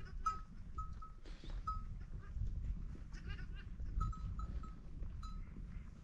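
Small neck bells on a sheep flock clinking irregularly as the animals move, each ring short and clear, over a steady low rumble.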